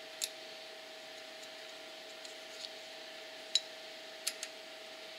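Light metallic clicks of cylinder-head nuts and washers being threaded by hand onto the head studs, about six short ticks spread unevenly over a few seconds, above a steady faint hum.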